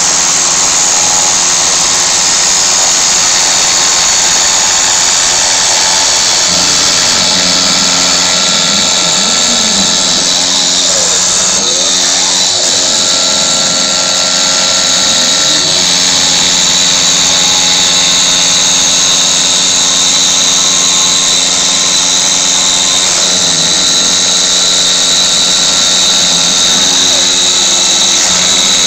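CNC router engraving plexiglass: the spindle and cutter run with a steady high-pitched whine and hiss, while the axis motors add humming tones that start and stop every few seconds and now and then slide up or down in pitch as the tool changes direction.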